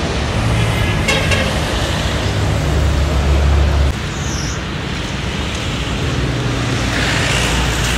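Road traffic and a car engine running: a steady low rumble that swells for about a second around three seconds in.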